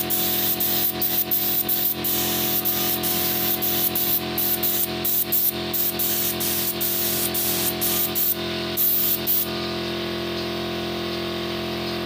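Compressed-air gravity-feed spray gun hissing as it sprays a coat of colour finish onto a wooden chair. The hiss breaks off briefly again and again as the trigger is let off and pulled, and it stops about nine and a half seconds in.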